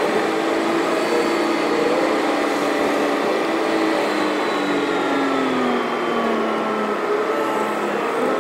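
Steady engine and road noise heard from inside a moving road vehicle, with its engine tones falling slowly in pitch over several seconds.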